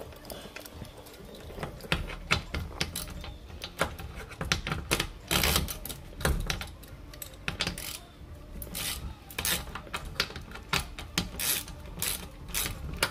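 Hand ratchet with a 10 mm socket clicking in quick irregular runs as it loosens the bolts of a plastic oil-drain access door in a car's undertray.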